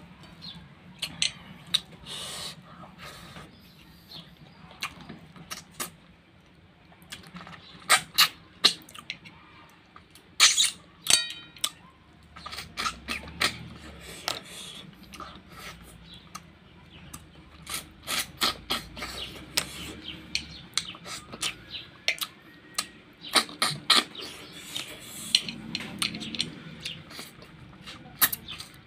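Close-up mouth sounds of eating rice and snail curry by hand: many wet lip smacks and chewing clicks at an uneven pace.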